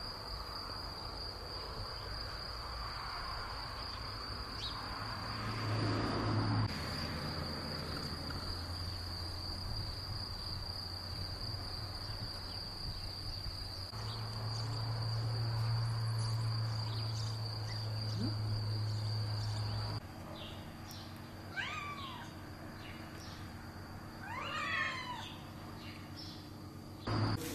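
Van cats meowing, two quick meows about three seconds apart in the last third, each a swooping glide in pitch. Before them there is a steady low hum with background noise, and a short knock at the very end.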